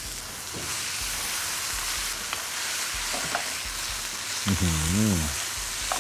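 Shredded raw green papaya and pork sizzling in hot oil in a wok, stirred and tossed with a wooden spatula, with faint scrapes of the spatula. A man's voice makes one short drawn-out sound about four and a half seconds in.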